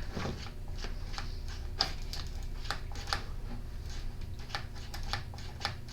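Light, irregular clicks and taps of small parts and hand tools as a Stihl FS40E trimmer's carburetor and choke linkage are handled and worked by hand, several clicks a second.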